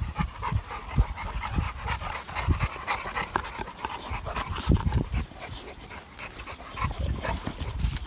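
Dogue de Bordeaux dogs panting close up, with irregular low thumps and small clicks as they press their faces against the phone.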